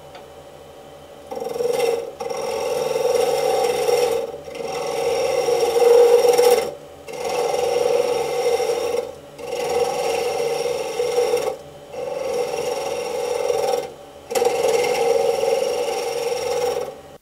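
Gouge cutting a spinning banksia-pod and dyed-epoxy pen blank on a wood lathe, rounding it into shape: a rough rasping cut in seven passes of about two seconds each, with short breaks between them. Under it runs the lathe motor's low, steady hum.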